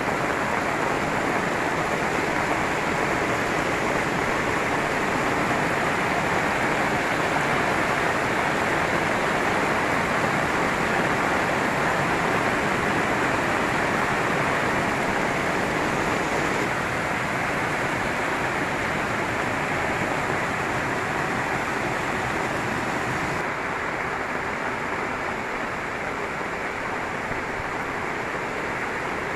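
Heavy rain pouring and muddy floodwater rushing over the ground, a steady dense hiss of water that eases slightly in the second half.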